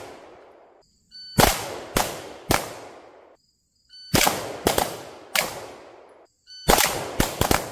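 Three strings of pistol fire. Each begins with the short electronic beep of a shot timer, followed within a second or so by a quick run of three or four handgun shots as the shooters fire on one target and transition to a second. Each shot has a brief echoing tail.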